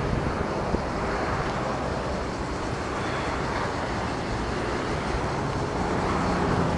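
Wind rushing over the microphone of a camera carried on a bicycle coasting downhill, with tyre and road noise; a steady rush that grows a little louder near the end.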